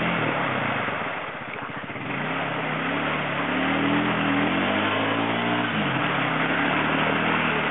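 ATV engine revving. It drops to a low putter about a second in, then picks back up, with the revs rising and falling.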